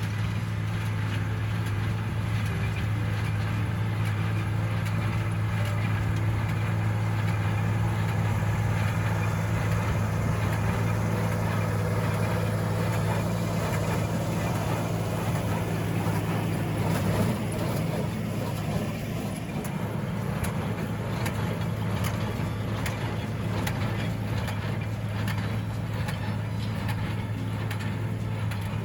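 Tractor engine running at a steady speed. There is a brief louder moment a little past halfway, after which it runs slightly quieter.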